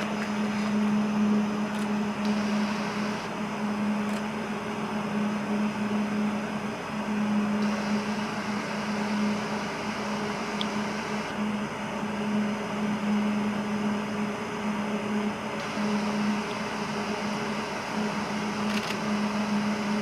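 Steady mechanical hum with a constant low tone over an even rushing noise, the drone of an indoor ice rink's ventilation and refrigeration plant.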